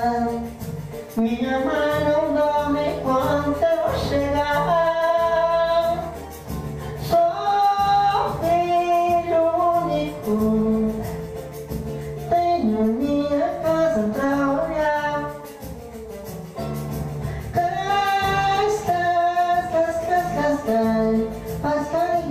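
A man singing a samba into a microphone over instrumental accompaniment, in sung phrases with short breaks between them.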